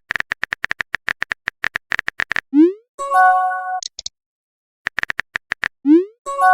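Phone texting sound effects: a run of rapid keyboard taps, a short rising pop as a message is sent, then a brief multi-note chime as a message arrives. The taps, pop and chime come again in the second half.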